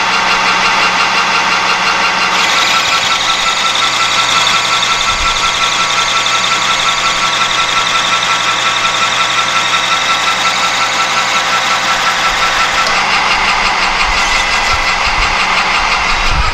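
Metal lathe running under a cut, turning down the outside diameter of a rod with the spindle and gear train whining steadily. About two seconds in a higher whine and hiss of the tool cutting join and carry on until a few seconds before the end, when they drop away.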